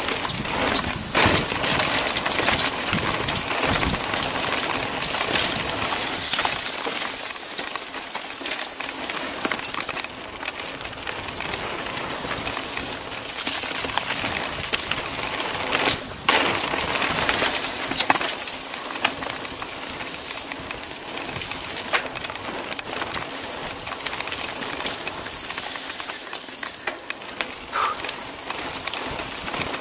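Mountain bike descending a dirt forest trail: a steady rush of tyre and wind noise, with frequent clicks and rattles from the bike as it runs over bumps.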